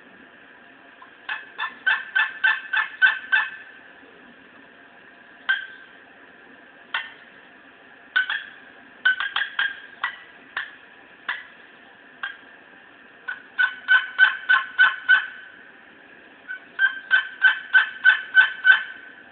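A purpleheart and mahogany short box turkey call being played: runs of about six to eight quick yelps, with single clucks scattered between the runs.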